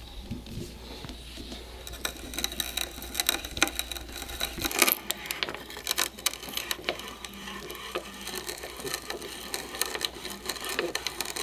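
Spiral auger bit boring through a wooden tenon: a steady crackling, scraping sound of wood fibres being cut and shavings pushed up the bit's spiral.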